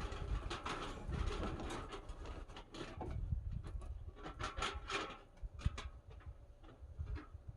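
Irregular scraping, rustling and light knocks, as of hands working with tools or materials, in a small room.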